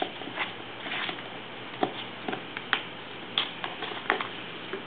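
Boston terrier carrying and mouthing a plastic frisbee: a scatter of light, irregular clicks and knocks.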